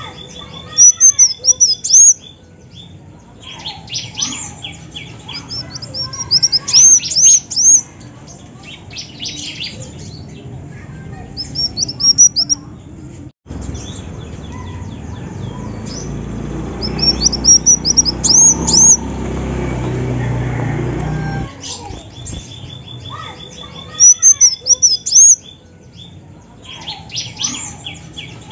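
Female kolibri wulung, a sunbird, calling: clusters of high, thin chirps that quickly rise and fall, coming in bursts a few seconds apart.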